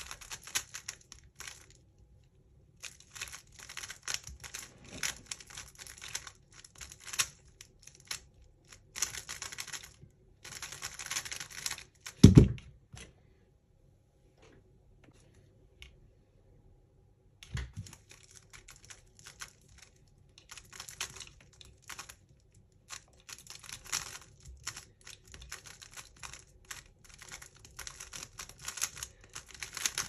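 A 3x3 speed cube being turned fast: rapid runs of crisp plastic clicks and rattles as its layers snap round. About twelve seconds in, the turning stops with a loud thump. After a few quiet seconds a second, lighter knock comes, and the quick turning starts again.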